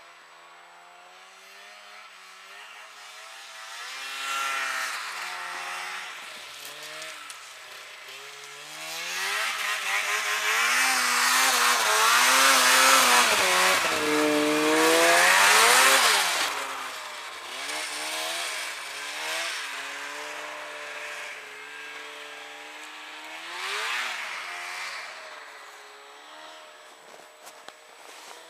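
Polaris XC600 snowmobile's two-stroke twin engine revving up and down as the sled rides through powder snow. It is loudest as it passes close about halfway through, then fades as it rides away.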